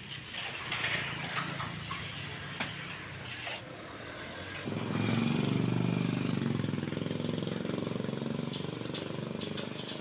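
Street traffic noise with scattered clicks. About five seconds in it cuts to a louder, steady engine running close by.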